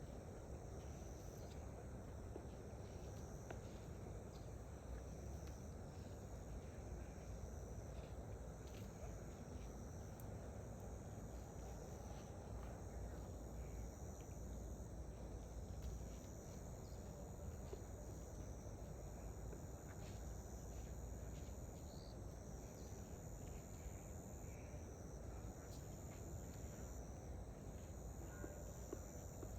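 Insects chirring in a high, steady drone that swells and eases every few seconds, over a faint low background rumble.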